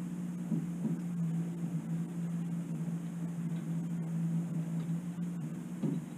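Boat motor running steadily, a low even hum, with a few faint knocks.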